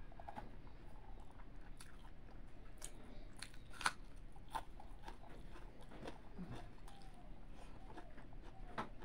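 Close-miked chewing of a mouthful of rice and fried fish, with wet mouth clicks and smacks and fingers working rice on a steel plate; one sharper click about four seconds in.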